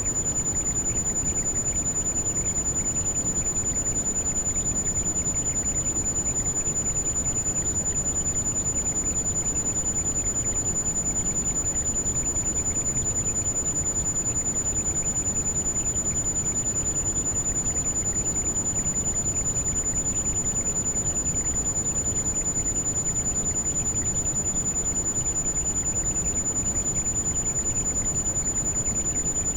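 Heavy rain, a steady even rush, with a single very high-pitched steady tone held over it throughout: a tinnitus masking sound track.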